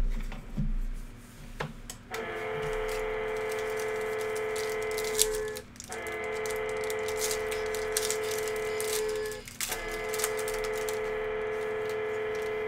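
A steady pitched tone with a stack of overtones, held about three and a half seconds each time, sounds three times with short breaks starting about two seconds in. Under it is a constant fine crackling and clicking of trading-card pack wrappers being torn open and handled.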